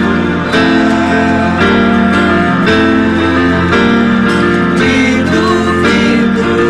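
A band playing a song live: strummed acoustic guitars with electric guitar and keyboard, and singing.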